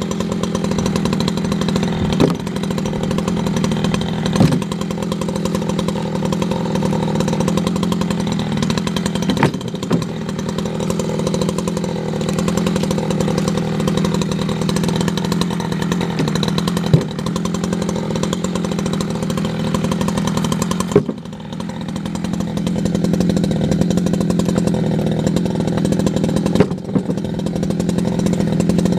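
A 60cc Echo CS620 chainsaw running hard at a steady pitch, with a few sharp knocks. About twenty-one seconds in the engine drops off briefly, then builds back up.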